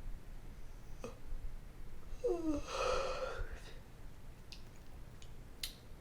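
A person yawning: a short voiced sound falling in pitch about two seconds in, running into a long breathy exhale. A few faint clicks come before and after it.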